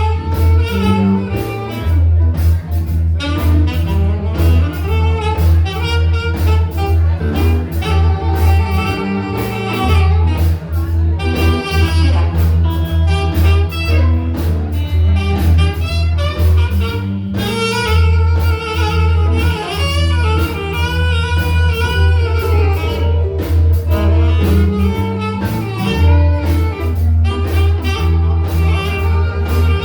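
Live blues band playing an instrumental passage, with a saxophone lead over a steady bass line and guitar.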